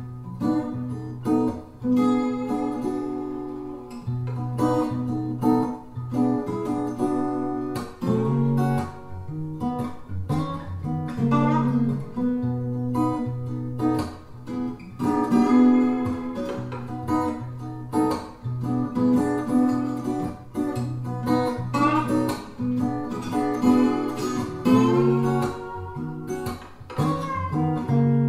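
Acoustic blues guitar instrumental played back through a pair of Boston Acoustics CR6 bookshelf speakers: picked notes over a repeating low bass note.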